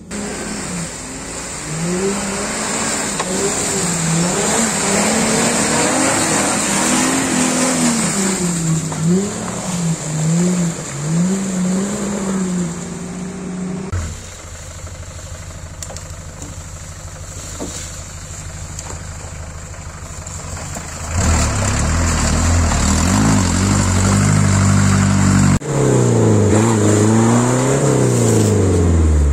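Off-road 4x4 engines revving up and down under load as the vehicles push through mud and over rocky ground. The clip has several cuts, with a quieter, steady-running stretch in the middle and loud revving again near the end.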